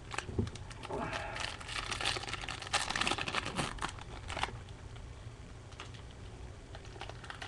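A trading-card pack wrapper being torn open and crinkled by hand: a crackling rustle for about three seconds, then a few faint handling clicks.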